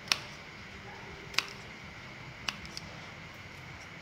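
Kitchen scissors snipping dried snakehead fish: four sharp snips about a second apart, the last two close together.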